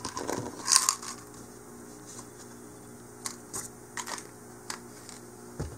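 Lead 3/0 removable split shot rattling in a small plastic container as one shot is tipped out, with a louder clatter about a second in. A few scattered light clicks follow.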